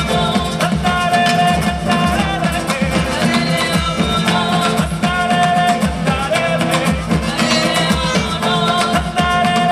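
Live Colombian folk dance music from a band: saxophones playing held melody notes over guitar and a steady, driving drum beat.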